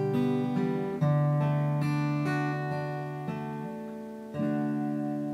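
Acoustic guitar music: a few slow chords, each left to ring and fade before the next is struck.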